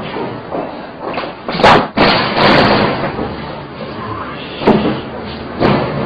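A loud slam about a second and a half in, followed by about a second of loud noisy sound, then two shorter thumps near the end.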